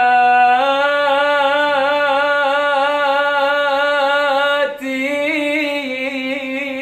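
A man singing an Arabic mawwal unaccompanied. He holds one long, ornamented note with a wavering pitch for nearly five seconds, breaks briefly, then sings the next phrase.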